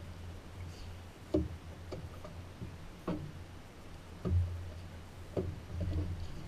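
Quiet background music with a sparse beat: short percussive hits about a second apart over a low bass line that comes and goes.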